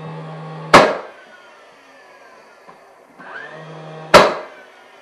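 Nail gun firing twice while the molding is fastened, the shots about three and a half seconds apart. Each shot is a sharp, loud bang with a short ring after it, preceded by about half a second of steady hum and a rising whine as the tool winds up.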